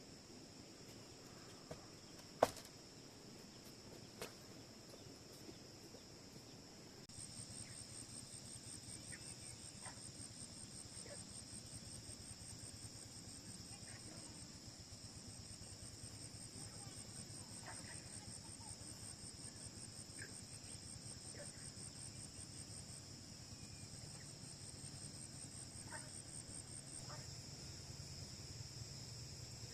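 Insects trilling steadily in several high-pitched layers. A second, rapidly pulsing trill joins about seven seconds in. There is one sharp click a couple of seconds in, and a few faint short chirps are scattered through the rest.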